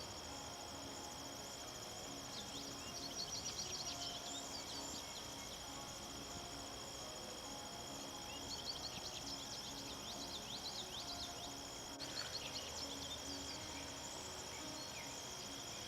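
Birds singing: clusters of quick, high chirps over a steady high insect trill, with soft music underneath.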